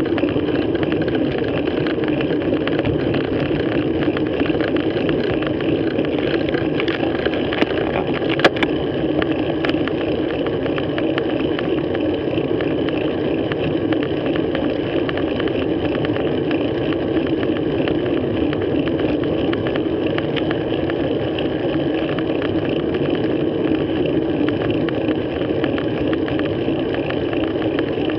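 Steady rush of wind and road noise on a handlebar-mounted action camera's microphone while a road bike rides at speed on tarmac, with two sharp clicks about eight and a half and nine and a half seconds in.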